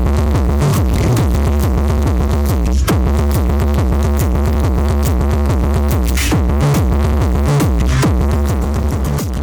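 Electronic dance music with a deep, heavy bass and a repeating beat, played loud through a paredão sound wall.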